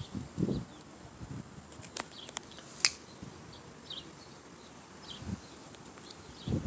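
Quiet outdoor ambience with faint, short high chirps scattered throughout, and a few sharp clicks about two to three seconds in, the last one the loudest.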